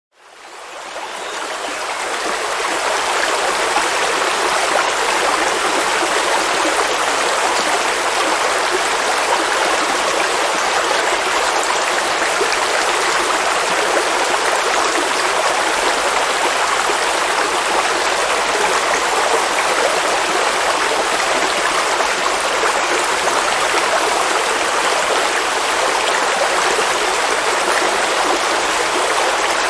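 River water flowing over rocks, a steady rushing and babbling that fades in over the first couple of seconds and then holds even.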